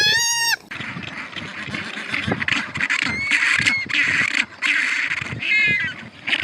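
Animal calls: a high-pitched call with bending pitch at the start and another near the end, with rougher, noisier calls in between.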